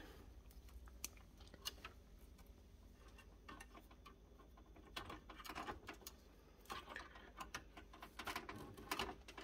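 Faint, scattered small clicks and rustles of braided power-supply cables and a plastic PCIe power connector being handled and pushed into a graphics card, coming in loose clusters.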